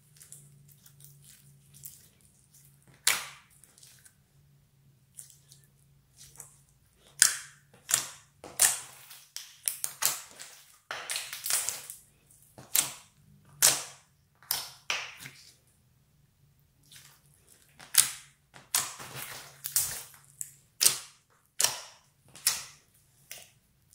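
Clear glitter slime with floam beads being stretched, folded and pressed by hand, giving a string of irregular sharp sticky pops and clicks. The pops start about three seconds in.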